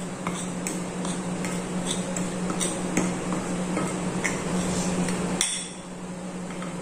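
Metal spoon stirring a dry mix of sugar, flour and spices in a glass plate, with irregular light clinks and scrapes against the glass that stop about five and a half seconds in. A steady low hum runs underneath.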